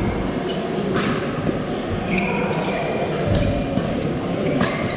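Badminton hall ambience: several sharp knocks of rackets hitting shuttlecocks and short squeaks of court shoes from play on nearby courts, over a steady background of voices, echoing in the large hall.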